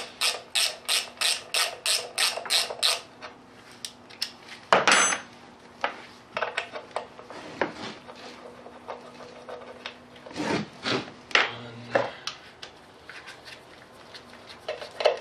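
Ratchet wrench backing out 10 mm bolts on a Cummins diesel engine block, with quick ratcheting strokes about four a second for the first three seconds. Scattered metal scraping and rubbing follow, with one sharp metallic clink about five seconds in.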